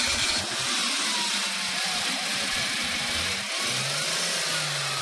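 Car engine running at steady revs over a broad rush of noise, its note dropping lower about three and a half seconds in.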